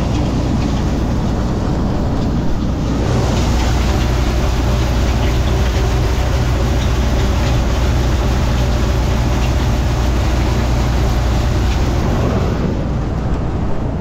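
John Deere 9500 combine running steadily at work, a low diesel engine hum under the rush of soybeans being thrown from the fill auger into the grain tank. The rushing hiss swells about three seconds in and eases off near the end.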